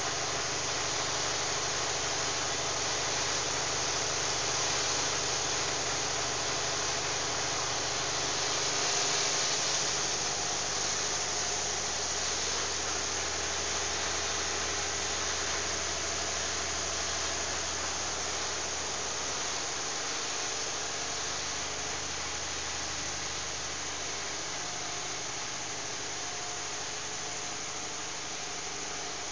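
Biomass gasifier power plant running, its gas-engine generator set giving a low, steady hum under a loud, even hiss.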